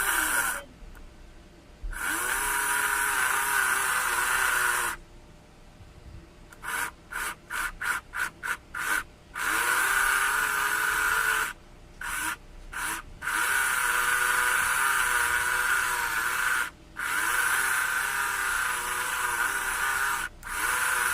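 Small toy DC motor with a repaired supply terminal, running in separate bursts as it is switched on and off: each run starts with a rising whine as it spins up, lasts a few seconds, then cuts off. Around the middle it gets a quick string of short on-off pulses, about two to three a second. It runs again on every pulse, showing the repaired terminal connection works.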